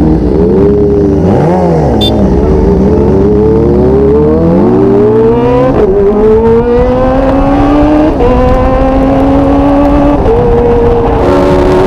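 Motorcycle engine pulling hard through the gears: its pitch climbs steadily, drops sharply at an upshift about six seconds in, then climbs again, with smaller pitch steps later on.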